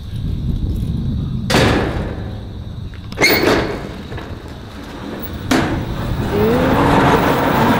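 Corrugated sheet-metal hangar doors being slid open: a steady low rumble of the moving panels, with three sharp bangs about a second and a half, three seconds and five and a half seconds in, and a drawn-out creak near the end.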